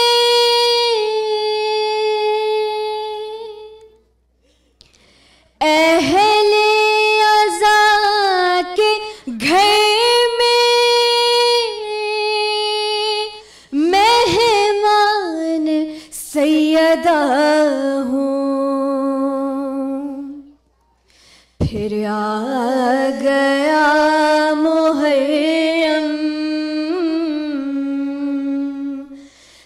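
Women's voices chanting a noha, a Shia mourning lament, unaccompanied, in long held, drawn-out notes with pitch bends. The phrases break off briefly twice, about four seconds in and about twenty seconds in.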